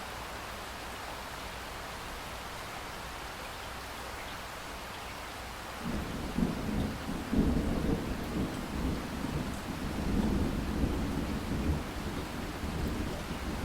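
Steady rain hiss. About six seconds in, a rumble of thunder breaks in suddenly and rolls on in repeated surges.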